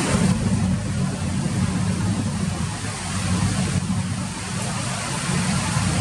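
Steady hiss of falling rain, with a low rumble underneath that comes in suddenly at the start and rises and falls every second or two.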